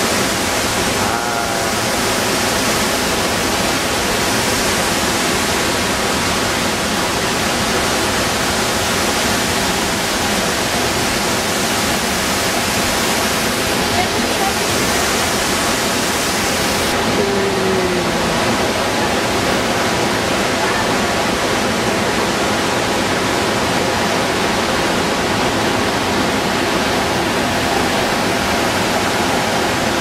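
La Fortuna waterfall pouring down its cliff: a loud, steady rush of falling water, its highest hiss dropping away a little past halfway.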